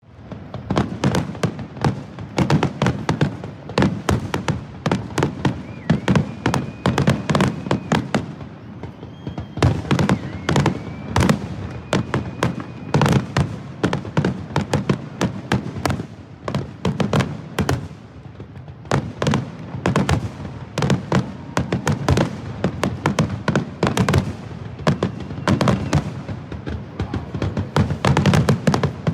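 Large fireworks display: a dense, continuous barrage of shell bangs that begins abruptly and never lets up, with a few faint whistling tones in the first half.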